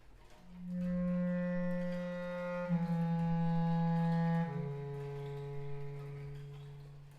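Slow instrumental music: a low, mellow instrument holds three long notes in turn, each lower than the last.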